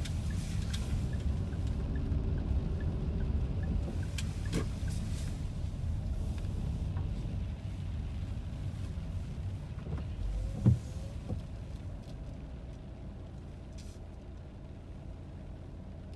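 Car cabin noise while driving on a wet road: a steady low rumble of tyres and engine that fades as the car slows to a stop behind another vehicle. A single sharp thump about ten and a half seconds in.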